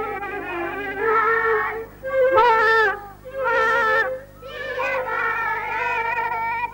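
Young children singing short phrases into a handheld microphone, in held, wavering notes with brief gaps between phrases.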